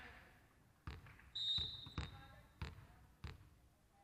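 A volleyball bounced on a wooden sports-hall floor, four thuds, the last three about two-thirds of a second apart. A short, steady, high referee's whistle about a second and a half in is the loudest sound, the signal that authorises the serve.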